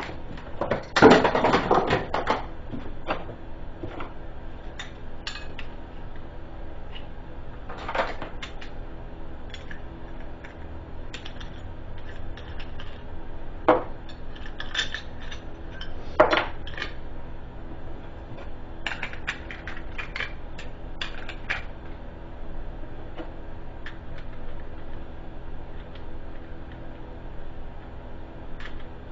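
Scattered metallic clicks and clatter of an angle grinder's cutoff wheel and fittings being handled and mounted by hand, the grinder not running. A louder burst of clatter comes about a second in, with single sharp clicks and a few short clusters later.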